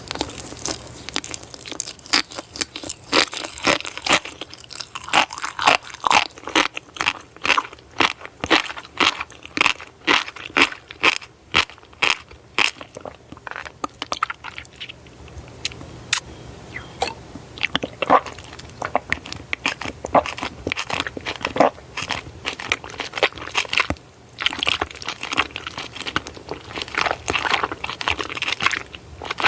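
Close-miked eating: a person biting and chewing food, with repeated crisp crunches and small pops several times a second and a couple of short pauses.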